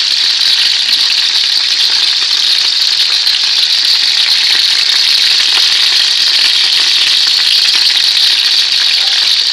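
Whole marinated chicken frying in hot oil in a nonstick frying pan: a steady, dense sizzle with fine crackling.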